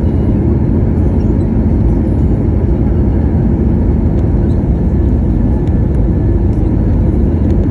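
Steady low rumble of an Airbus A320neo's CFM LEAP-1A engine and airflow, heard inside the passenger cabin near the engine. The noise holds even throughout, with no changes in pitch or level.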